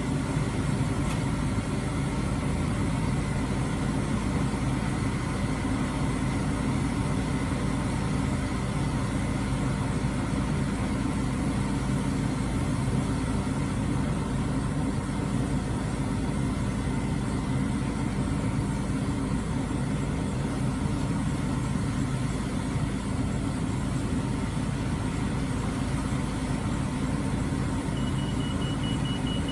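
Diesel engine of a crane-equipped boom truck running steadily at a constant speed. A high beeping starts near the end.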